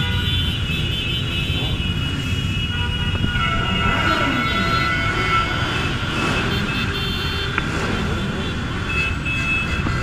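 Many motorcycle engines running together in a slow-moving pack, with riders blipping their throttles into short revs and horns sounding.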